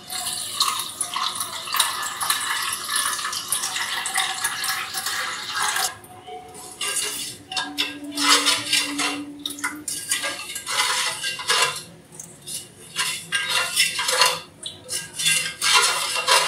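Water pouring into a stainless steel bowl for about six seconds, then a spoon stirring the thin liquid, clinking and scraping against the bowl in uneven strokes.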